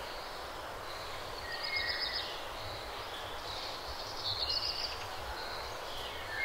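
Outdoor ambience: a steady background hum and hiss with small birds chirping briefly, about a second and a half in and again about four seconds in.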